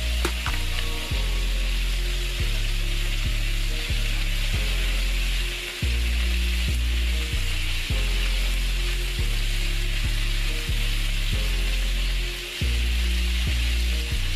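Chicken wings and ginger slices frying in oil in a pan, a steady sizzle throughout, over background music with low held notes that change every second or so.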